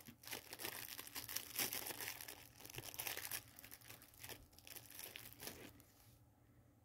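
Clear plastic snack-cake wrapper crinkling and tearing as it is opened by hand: a run of faint, irregular crackles that stops about six seconds in.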